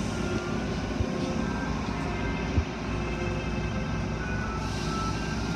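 Automatic car wash tunnel machinery and water spray running with a steady rumble, heard through a glass window, with two short knocks, one about a second in and a louder one about two and a half seconds in.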